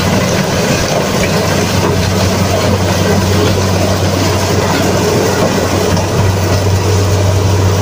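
Tracked combine harvester running and cutting and threshing standing corn: a loud, steady drone of engine and machinery with a low hum under a dense rattle.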